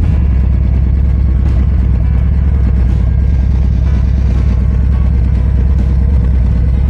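Harley-Davidson Road Glide Limited's V-twin engine running steadily at cruising speed, with a low, even rumble of exhaust pulses.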